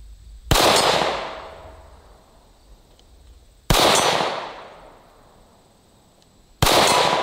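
Three pistol shots from a Ruger-57 firing 5.7×28mm rounds, about three seconds apart, each sharp crack followed by a long echoing decay.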